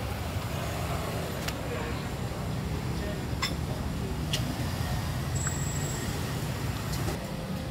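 Street-food stall ambience: a steady low rumble with a few sharp clicks and taps scattered through it, and faint voices in the background.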